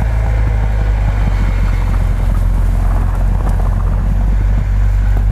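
Off-road vehicle engine running steadily close by, a deep low hum with light crackle over it.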